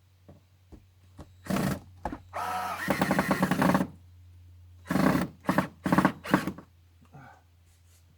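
Power drill driving screws into plywood sheathing: a short burst, then a longer run of the motor, then a cluster of quick bursts as screws are driven home.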